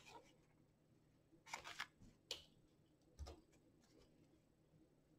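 Near silence, broken by a few brief soft rustles of paper as the pages of a handmade paper journal are handled and turned, and a soft low thump about three seconds in.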